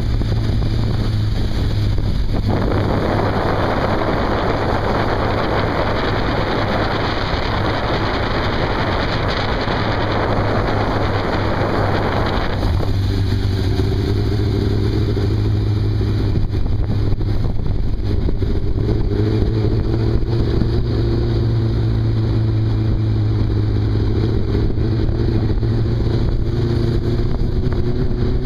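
Motorcycle engines running at road speed, a steady low drone under heavy wind rushing over the microphone. The wind noise drops away about twelve seconds in, and the engine note then comes through, slowly rising in pitch.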